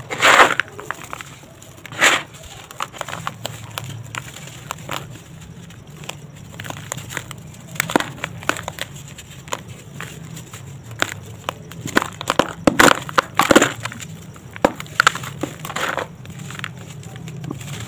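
Hands crumbling chunks of dry sand-cement into a plastic tub: irregular gritty crunching and crackling as the lumps break and the powder pours, with loud crunches near the start and about two seconds in, and a cluster of them around twelve to fourteen seconds in. A faint steady low hum runs underneath.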